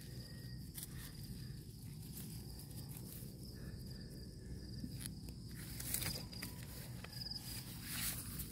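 Insects trilling in short, repeated high chirps in a rice-stubble field, over scattered rustles and clicks of dry rice straw and soil being handled close by, plus a steady low rumble.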